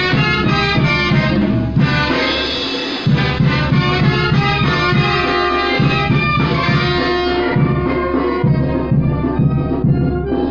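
Loud festive band music with brass instruments over a steady, pulsing bass line.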